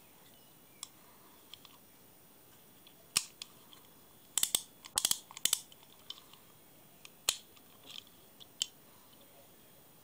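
Bakelite Allcock Aerialite centrepin reel being handled: a scattering of sharp clicks and knocks from the reel's parts, with a quick run of them around the middle.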